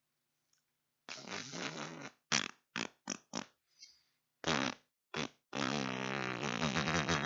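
A string of farts with a buzzy, wavering pitch: a one-second fart about a second in, a quick run of five or six short pops, then a long drawn-out fart starting past the halfway mark and still going at the end.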